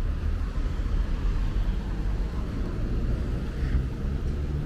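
Road traffic: vehicles running past with a steady low rumble, and an engine note standing out from about three seconds in.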